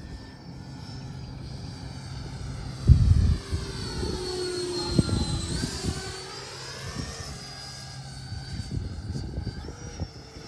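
FMS BAE Hawk 80mm electric ducted-fan RC jet flying a slow pass with flaps out. Its fan whine sweeps down in pitch toward the middle and back up as it goes by. A loud low buffet of wind on the microphone comes about three seconds in.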